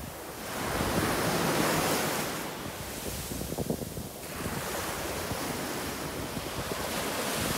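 Small waves washing up over the sand at the shoreline and draining back, with wind buffeting the microphone. One wash swells about a second in and fades by three seconds, and another builds near the end.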